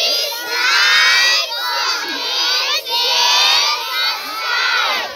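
A large group of young children shouting and cheering together, in several long shouts with short breaks between them.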